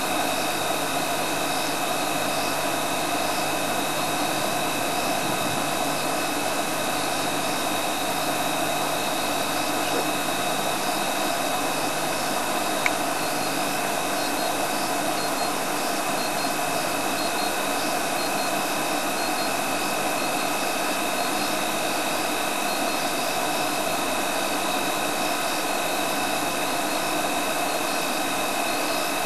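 Steady hiss with two constant high-pitched tones and a faint repeated chirping above them, and one small click about 13 seconds in.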